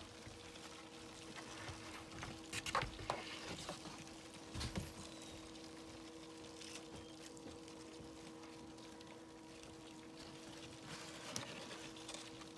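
Faint rustling and scraping of cardboard egg flats being handled in a plastic tub, with a few louder rustles a few seconds in and one more near the end, over a steady low hum.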